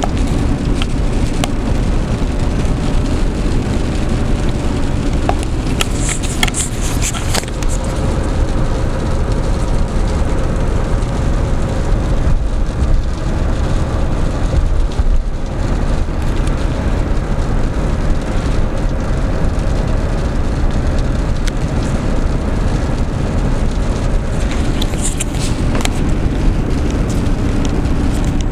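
Steady road and tyre rumble with engine hum inside the cabin of a Suburban holding 60 mph on cruise control, engine turning about 1,700 rpm. Brief hissing rushes about six seconds in and again near the end.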